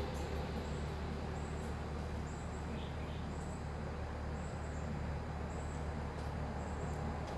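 Outdoor background: a steady low rumble with short, faint high-pitched chirps repeating about once a second.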